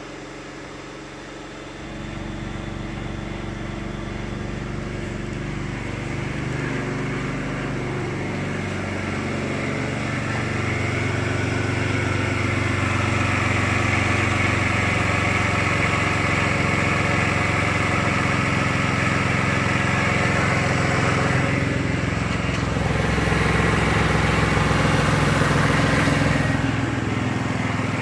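2008 BMW 335i's twin-turbo straight-six idling steadily with an unfamiliar noise that appeared after an engine replacement, which the mechanic calls normal. It grows louder over the first dozen seconds, then holds steady.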